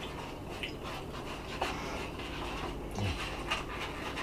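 Metal spoons scraping and clicking against bowls of chili while two people eat, the clicks coming irregularly. A short, low voiced 'mm' sounds about three seconds in.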